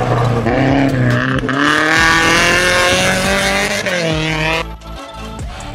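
Honda Civic rally car engine at full throttle on a gravel stage, pitch climbing and dropping through gear changes as it passes. The sound cuts off abruptly near the end to something much quieter.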